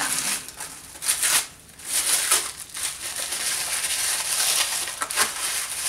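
Wrapping paper crinkling and tearing in irregular rustles as a wrapped gift is opened by hand.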